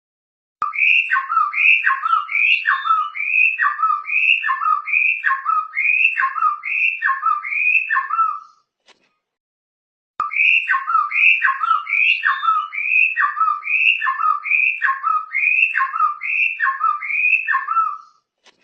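A caged songbird whistling one short falling phrase over and over, about two a second, heard by its owners as calling 'Jokowi'. It sings in two long runs with a short pause between them.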